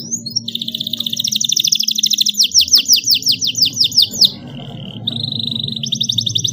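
Domestic canary singing rapid rolling trills, many notes a second, a brief buzzy note a little past four seconds, then another long trill. A low drone runs underneath.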